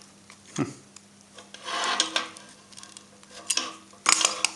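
Rubbing and scraping with scattered clicks as a heavy welding earth cable with burnt insulation is worked on by hand. There is a longer scrape about two seconds in and a quick cluster of clicks near the end.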